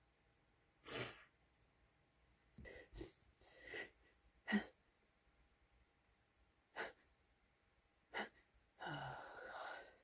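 A person sneezing several times, with short breathy catches of a sneeze buildup between the sneezes. The loudest sneeze is short and sharp, about halfway through, and a longer breathy burst comes near the end.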